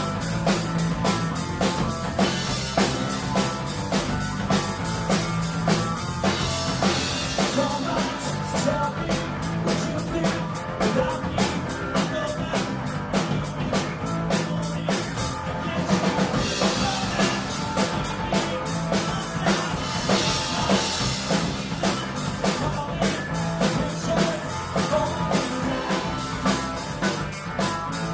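Live rock band playing, the drum kit driving a steady, fast beat over bass and guitar.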